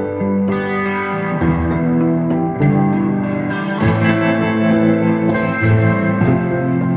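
Background music: a plucked guitar instrumental with sustained notes that change every second or so.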